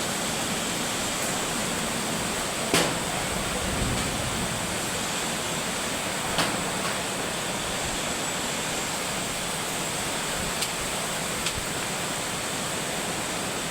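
Heavy rain and wind of a summer thunderstorm: a steady, even rush of downpour, broken by a few sharp knocks, about four over the stretch.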